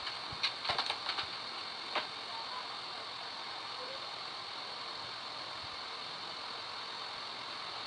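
A few light clicks and taps in the first two seconds from handling the freshly crimped CAT6 cable and crimping tools, then only a steady hiss.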